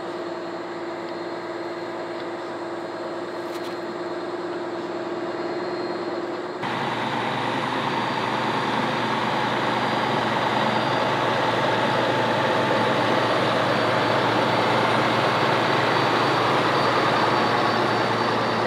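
Diesel engine of a Mack boom crane truck running steadily while the crane hoists a heavy netted load; about six and a half seconds in it becomes fuller and louder and stays that way.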